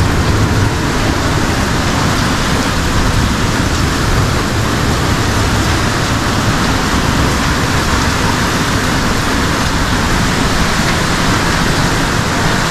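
Torrential rain pouring down steadily.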